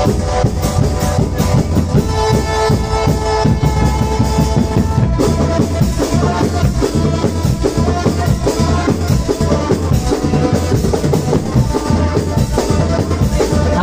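Marching band playing: bass and snare drums keep a steady beat under a held melody.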